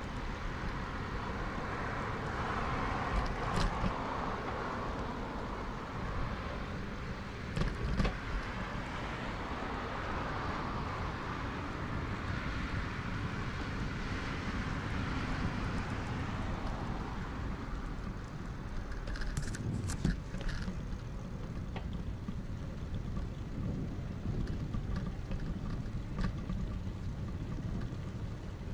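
Steady rushing wind noise on a moving camera's microphone, with the low hum of distant road traffic and a few sharp clicks or rattles.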